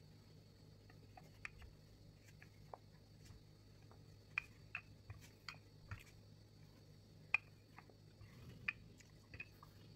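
Wooden rolling pin rolling out pie dough on a floured silicone mat: quiet, scattered light taps and clicks as the pin is pressed and shifted, over a low steady hum.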